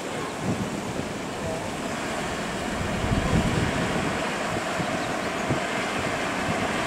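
Truck-mounted crane running, engine and hydraulics giving a steady drone with a faint whine that sets in about two and a half seconds in, as the hook is lowered to the workers.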